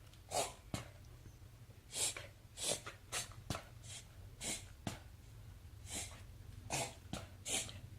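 West Highland white terrier sneezing over and over: about a dozen short, sharp sneezes and snorts in quick, uneven succession, an uncontrollable sneezing fit.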